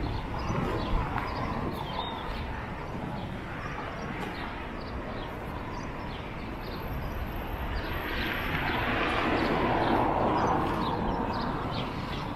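Street ambience beside a road: a car passes close by, swelling about eight seconds in and fading, over a steady hum of traffic, with short high chirps scattered throughout.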